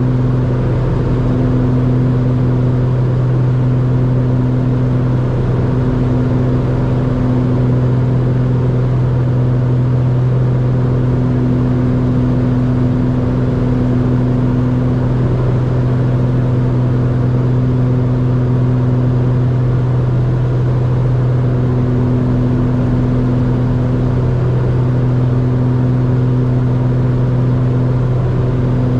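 Beechcraft B60 Duke's twin turbocharged six-cylinder piston engines and propellers droning steadily at a constant power setting, one deep even tone with a higher tone above it.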